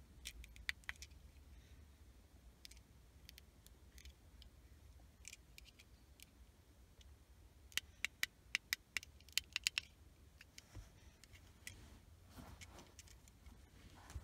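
Small plastic clicks and handling of a Bluetooth FM transmitter car charger, over a faint low hum. Around the middle comes a quick run of about ten sharp clicks in two seconds as its call answer and reject buttons are pressed.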